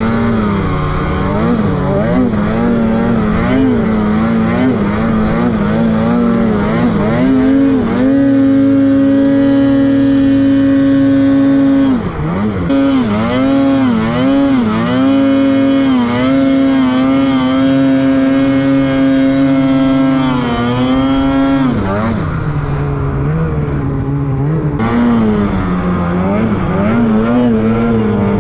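Snowmobile engine revving up and down as the throttle is worked, held at a steady high pitch for a few seconds about a third of the way in and again past the middle, then settling to lower revs near the end.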